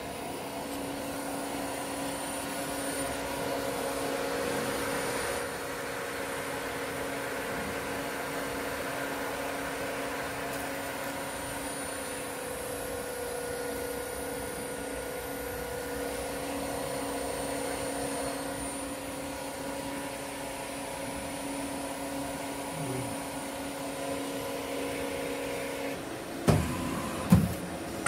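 Steady machine hum from a hydraulic bar feeder's power unit running, with several constant tones, broken near the end by two loud clunks about a second apart.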